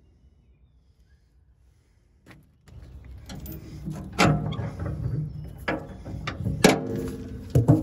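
Metal tie-down hardware clanking: four sharp knocks, each with a short ringing tail, over a steady low rumble that starts suddenly about a third of the way in.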